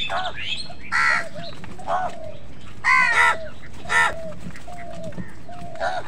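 A flock of house crows calling: several harsh caws, the loudest about one, three and four seconds in, with shorter, lower calls in between.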